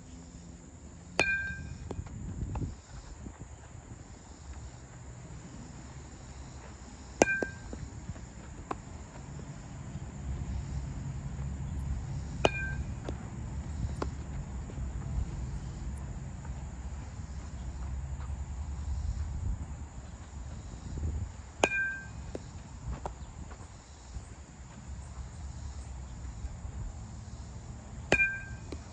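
Baseball popping into a leather glove five times, a sharp smack every five to nine seconds with a brief ringing tone after each. Fainter knocks come in between, over a low wind rumble and a steady high insect buzz.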